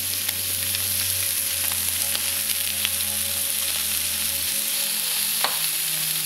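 Thick cubes of Korean beef sirloin sizzling steadily on a hot cast-iron griddle, with scattered small crackling pops and a sharper click about five seconds in as the pieces are turned with chopsticks.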